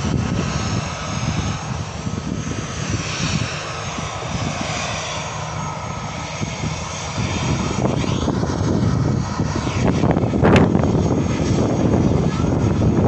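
Jet airliner engines. A departing airliner's engine whine falls in pitch as it climbs away. About halfway through, a louder, steadier engine rumble and whine take over from a narrow-body jet taxiing close by.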